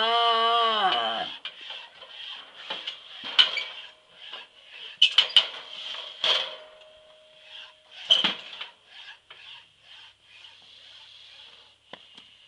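A calf bellows, its call ending about a second in, followed by a scattered series of sharp metallic clanks and knocks from the steel head chute holding it as the animal shifts.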